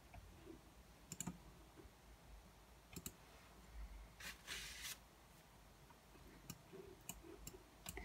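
Faint clicks from a computer being worked, about half a dozen scattered over several seconds, with a short scratchy rustle around the middle; otherwise near silence.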